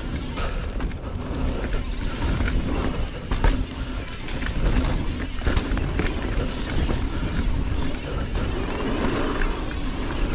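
Mountain bike riding down a dirt singletrack: steady rumbling wind on a GoPro microphone and tyres rolling over dirt, with frequent short clatters and knocks as the bike goes over bumps.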